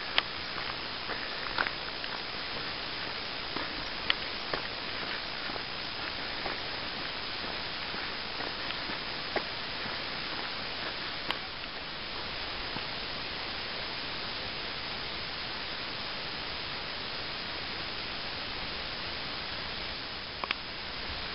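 Steady, even hiss, with a few sharp clicks scattered through it.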